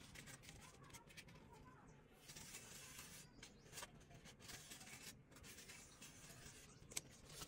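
Near silence with faint scratching and rubbing: a cardboard template being pressed and slid against fresh cement plaster, with one short click about seven seconds in.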